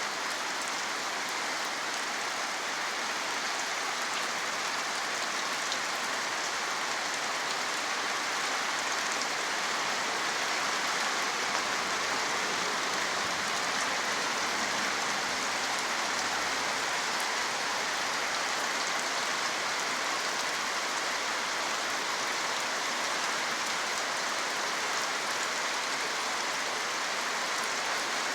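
Steady rain falling, an even hiss of many drops with faint individual drop ticks.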